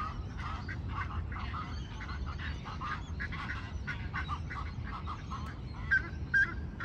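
A chorus of waterbirds calling from the lake, many short overlapping calls throughout, with two louder calls about six seconds in, over a steady low rumble.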